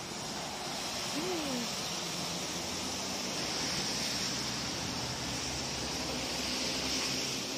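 Steady outdoor background hiss and rumble, with one short rising-and-falling call about a second in.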